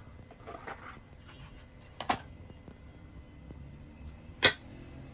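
Light handling noise of plastic printer parts, with two sharp clicks about two seconds in and again near the end, the second the louder, as a new drum cleaning blade is taken from its plastic holder on a glass-topped bench.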